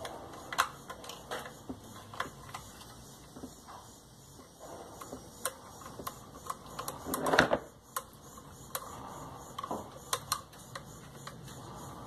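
Scattered small clicks and scrapes of a metal tool working at the carbon-brush holder of a vacuum cleaner motor, with one louder, longer scrape about seven seconds in.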